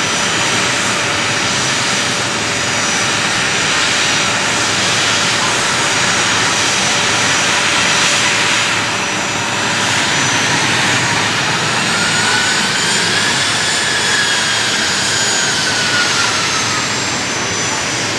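A-10 Thunderbolt II's twin TF34 turbofan engines running on the ground close by: a steady loud jet whine over a broad roar. In the second half a higher tone swells and then sinks over a few seconds.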